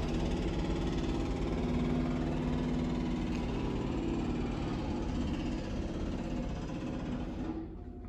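Jackhammer working in the street, heard from inside an apartment near the front window: a continuous rapid hammering with a low drone under it, easing slightly near the end.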